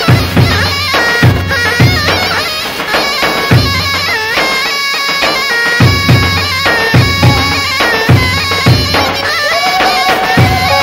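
Live folk dance music: large double-headed tabl drums beating a dance rhythm under a loud, reedy, ornamented wind melody.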